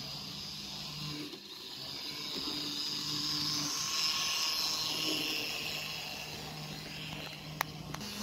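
Model steam locomotive and its coal hopper cars running on metal track: the locomotive's electric motor whines and the wheels roll, growing loudest as the train passes close by about halfway through, then easing off. There is a single sharp click near the end.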